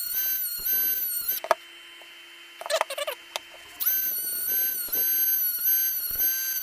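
Small high-speed rotary tool with a cutting disc whining as it cuts through the nickel connecting strip of a lithium battery pack. It runs in two spells, the second about three seconds long, with a short scraping sound in the pause between them.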